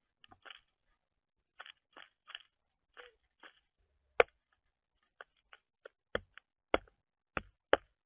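Northern flicker pecking and probing in the seed of a plastic tray feeder: an irregular string of dry taps and crunches as its bill strikes seed and tray. The strikes get sharper and louder in the second half, with the loudest single knock about halfway through.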